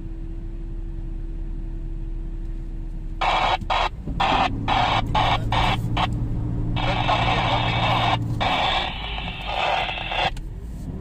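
Bursts of two-way radio static, choppy and cutting in and out from about three seconds in, then held for a few seconds near the end, over the steady hum of an engine running at low revs.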